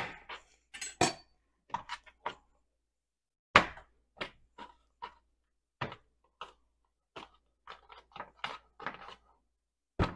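Scattered knocks and clinks of a kitchen knife against a metal baking sheet and a granite countertop as bread dough is cut and moved about on the sheet. The loudest knocks come right at the start and about three and a half seconds in, followed by many small taps.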